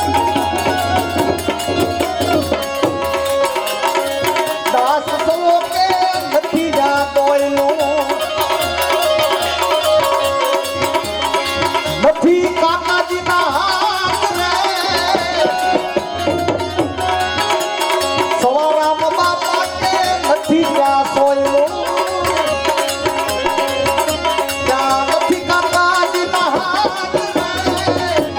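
Gujarati santvani devotional music: tabla playing a continuous rhythm under sustained melodic tones.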